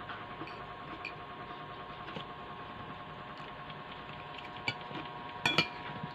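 Metal spoon and fork scraping and clinking against a ceramic plate of rice while eating, with small clicks throughout and a few sharper clinks near the end. A steady faint hum runs underneath.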